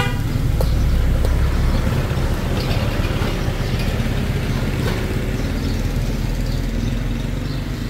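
Engine running steadily close by, a loud low rumble.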